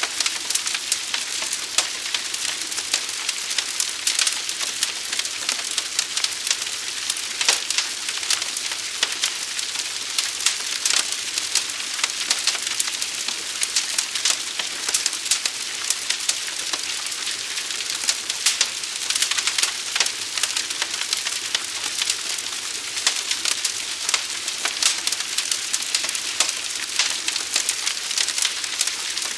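Wildfire burning: dense crackling and popping over a steady hiss, with a few louder pops here and there.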